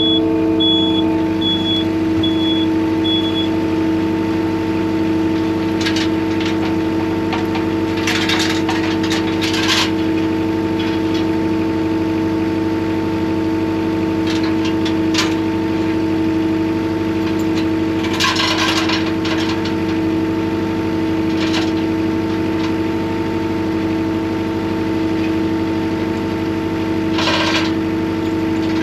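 An engine idling steadily, its pitch unchanging, with a few short bursts of metal clanking and rattling about a quarter, a third and two-thirds of the way in, and again near the end.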